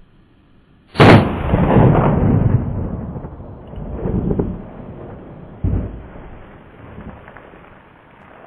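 A single shot from a Marlin Model 30 TK lever-action .30-30 carbine about a second in, with a long rolling echo, striking a water-filled bucket. Weaker thuds follow around four and six seconds in.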